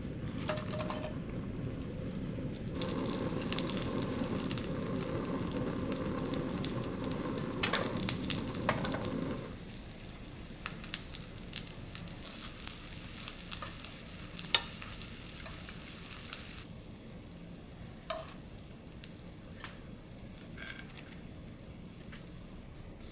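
Pieces of abura-age (deep-fried tofu) sizzling as they fry in a nonstick frying pan, with scattered clicks and taps as they are laid in and turned with chopsticks. The sizzling cuts off about two-thirds of the way through, leaving a few faint chopstick taps.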